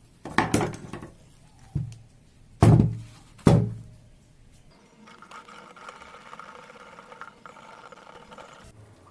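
Four hard knocks, the last two loudest and less than a second apart, then a faint steady hum that runs for about four seconds and stops shortly before the end.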